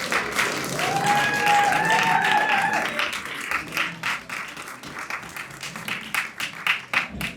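Audience applauding, dense clapping that thins to scattered claps toward the end. A held higher tone rides over the clapping from about one to three seconds in.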